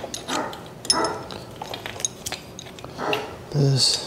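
Light metal clicks and clinks of a wrench and bolts as a motorcycle motor-mount bolt is undone and pulled out. Near the end comes a short, louder voiced sound.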